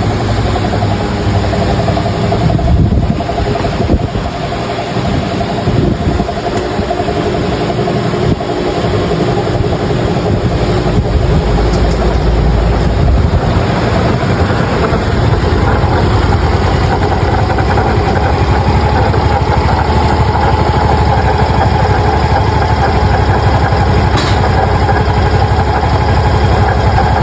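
RS Neo 125 scooter engine running with a noise from the CVT transmission, which the mechanic suspects is a damaged movable drive face (variator) bearing or a worn movable drive face. The sound gets a little louder and steadier about halfway through.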